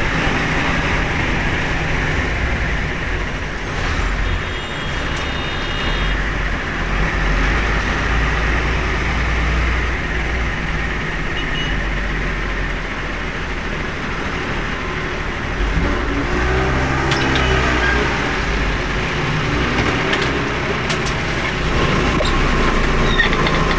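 Engine and road noise of a moving vehicle heard from inside its cab, a steady low rumble, with the engine note shifting for a few seconds late on as it slows into a toll lane.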